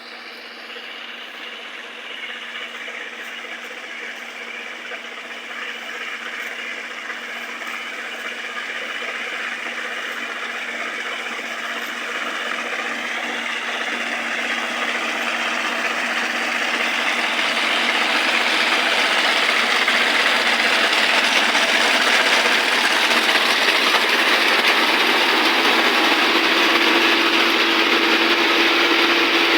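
Marksan MS700 combine harvester running, a steady mechanical whir and hum. It grows steadily louder for about the first twenty seconds, then holds level, and a new steady hum joins near the end.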